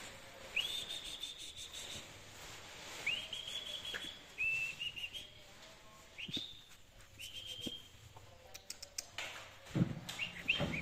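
A bird singing: a series of high whistled notes, each sliding up quickly and then held, some broken into short quick trills, with a few soft knocks near the end.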